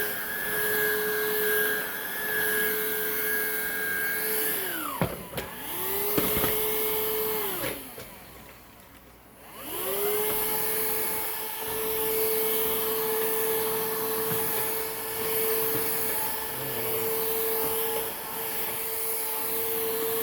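Hoover React cordless vacuum's motor running with a steady whine. It winds down about five seconds in, spins up briefly and winds down again, then starts back up about ten seconds in and runs steadily.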